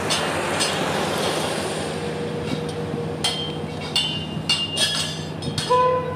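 Freight train hauled by the DEL4425 diesel locomotive, with a steady engine hum under repeated sharp metallic clanks, several of them ringing briefly.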